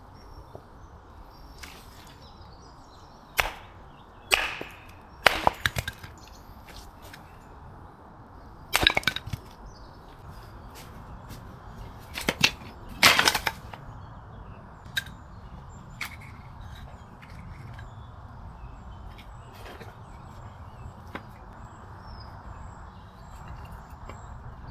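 Firewood being chopped: a series of sharp woody knocks and cracks, several in quick clusters, which thin out after the first two-thirds into a few faint scattered ticks.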